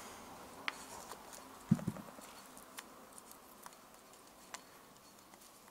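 Faint scattered clicks and light taps of gloved fingers working a new rubber piston seal into a cast brake caliper bore, with one louder knock near two seconds in.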